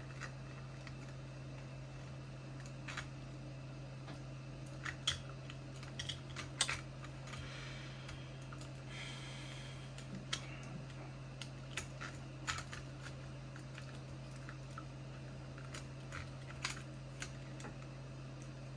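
Scattered small clicks and taps of a screwdriver and plastic parts being handled while the four screws on top of a portable Bluetooth speaker are taken out, some in quick clusters, over a steady low hum.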